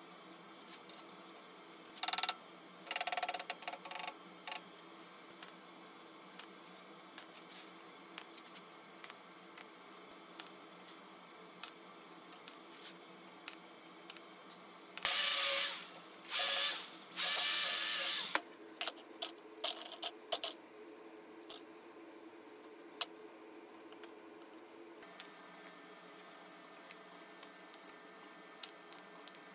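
Clicks and knocks of metal parts being handled and fitted on a homemade steel gas-can stove, over a faint steady hum. A few short, loud noisy bursts come about two seconds in, and three more about halfway through are the loudest sound.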